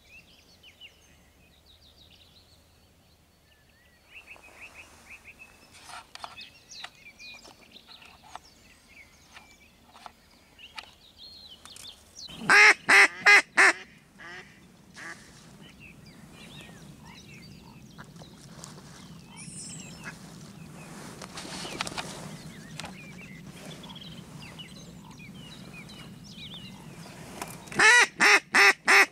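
A hen mallard's loud, rapid series of about five quacks, calling to drakes: once about twelve seconds in and again at the end. Faint small-bird chirps between the two series.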